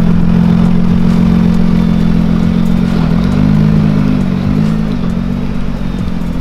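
Nissan GT-R's twin-turbo 3.8-litre V6 running at low speed, a steady engine note that wavers up and down in pitch a few times around the middle.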